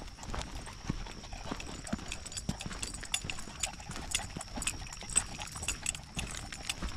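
Footsteps walking along a wet, muddy dirt trail: soft irregular impacts at about two steps a second. A faint steady high tone sits behind them.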